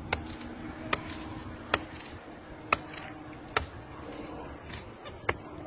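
Six sharp knocks, spaced unevenly about a second apart, over a faint steady hum.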